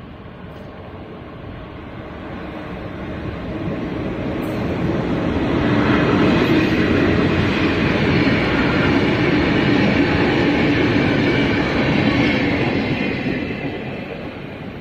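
Freight train led by electric locomotive E211, with R-class diesel locomotives coupled behind, passing close by on the track. The rumble and wheel-on-rail noise grow over the first few seconds, stay loud through the middle with some clickety-clack, then fade away near the end.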